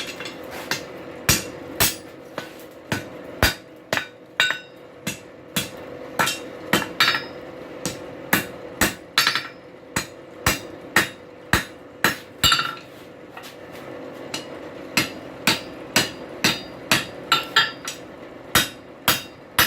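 Blacksmith's hammer striking hot steel on an anvil, bending a bar over at the pritchel hole to start a 90-degree upset corner. The blows come irregularly, about one or two a second with a short pause midway, each one ringing, over a steady hum.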